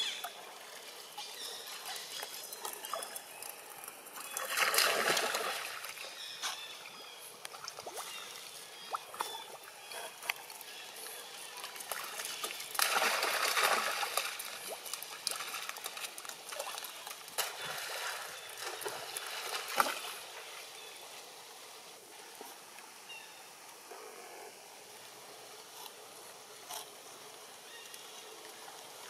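Water splashing and trickling as macaques wade and swim in a shallow pool, with two louder bouts of splashing, about four seconds in and again near the middle.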